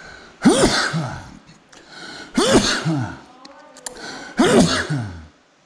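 A person's voice making three short, breathy non-speech sounds about two seconds apart, each rising and then falling in pitch.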